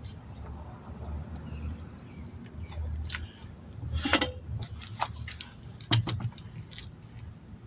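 A few short knocks and scrapes as a tire and wheel is handled on a bubble wheel balancer, lifted off its cone and stood on the pavement. The loudest is a short scrape about four seconds in, with another sharp knock about six seconds in.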